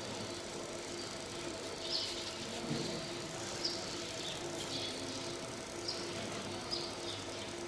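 Fiber laser marking machine running while it marks stainless steel: a steady hum, with short high-pitched blips at irregular intervals about a second apart.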